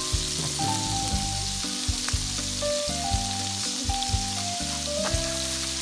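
Hamburg steak patties sizzling as they fry on a hot griddle plate, with a few sharp pops, over background music of held notes.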